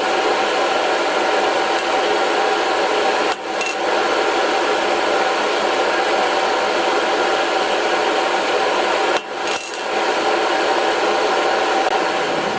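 Blacksmith's forge running, a steady rushing noise with faint steady tones in it. It dips briefly about three seconds in and again about nine seconds in.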